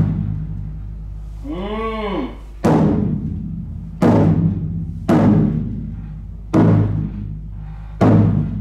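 Hira-daiko (flat Japanese taiko) struck lightly with wooden bachi, about five strokes a second or so apart, each leaving a low ring that fades. Its stretched hide head has been partly re-tightened by steaming and sun-drying: a usable tone, though not a new drum's good sound.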